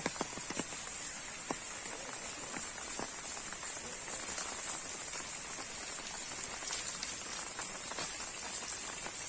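Steady rain falling, with scattered individual drops ticking sharply, several close together about the first second.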